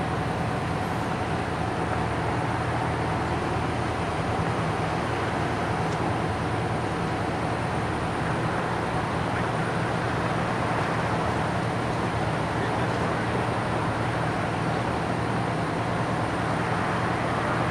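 Steady low engine drone mixed with the noise of road traffic, unchanging throughout.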